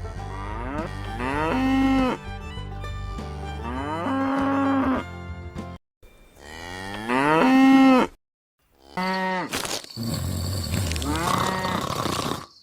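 Cow mooing, about four long moos in a row, with sudden cuts to silence between some of them.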